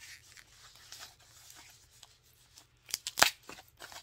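Protective paper wrapping on a new bag strap rustling and crinkling as it is handled and unwrapped, with a few sharp crackles about three seconds in.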